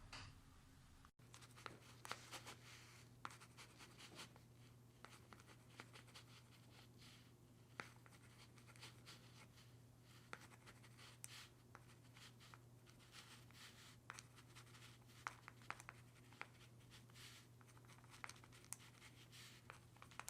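Near silence: a faint steady low hum with scattered faint clicks and scratches, which are louder around two and three seconds in and near the fifteen-to-nineteen second mark.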